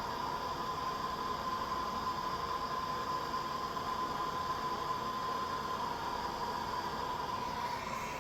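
Handheld gas torch burning with a steady hiss while it heats a copper pipe joint for soldering, with a thin steady tone running through the hiss.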